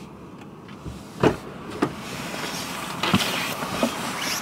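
Car passenger door opened with a thump about a second in, followed by a rising rustle with clicks and knocks as a person climbs into the seat.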